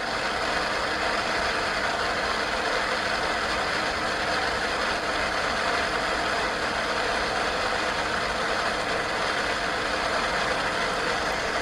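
Steady hiss of static that cuts off suddenly near the end.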